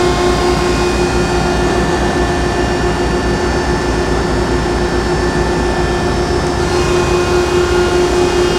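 1969 Landis 1R universal cylindrical grinder running with its hydraulic system, grinding wheel and table feed on: a steady mechanical hum with a constant tone.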